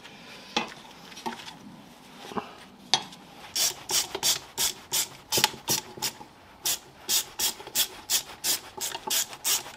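Hand tool working on metal or plastic: a few scattered clicks, then from about three and a half seconds in a steady run of short rasping strokes, about three a second.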